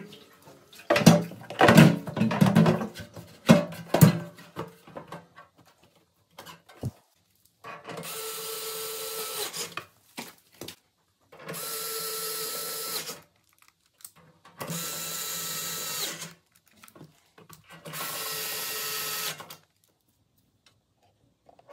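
Knocks and clatter of metal parts being handled for the first few seconds, then an electric screwdriver running in four separate bursts of about two seconds each, driving in screws.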